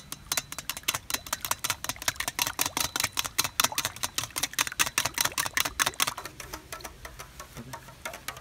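Metal spoon beating raw eggs in a stainless steel bowl: rapid clinking strokes of spoon on steel, about seven a second, that thin out to a few scattered clinks in the last couple of seconds.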